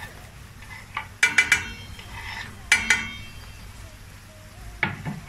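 Chopped garlic pushed off a cutting board into a stainless steel pot of frying onions, with sharp ringing clinks against the pot: three quick ones about a second in, two more a second and a half later, and a couple of softer knocks near the end. A faint sizzle of onions frying in oil and butter runs underneath.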